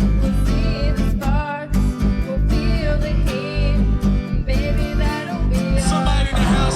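Music: a steady drum beat and heavy bass under a melody line that slides up and down in pitch, with plucked strings.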